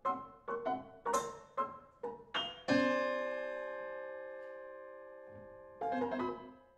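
Prepared piano playing a quick run of short, struck notes and chords. About three seconds in, one chord rings on and fades slowly, and a last cluster of notes stops just before the end.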